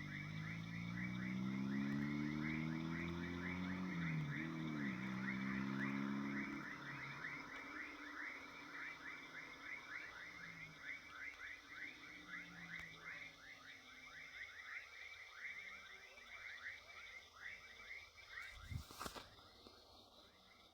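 A motor vehicle's engine rises in pitch for about four seconds, dips once as at a gear change, and fades out by about seven seconds in. Underneath is a steady chorus of rapid chirping calls, which thins out toward the end, and there is a single sharp click near the end.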